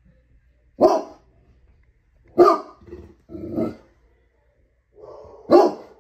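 A large dog barking at a television screen: four single barks one to two seconds apart, with a short, quieter growl just before the last.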